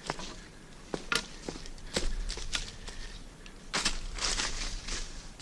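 Footsteps on a rainforest walking track: irregular short steps and scuffs, bunching together about four seconds in.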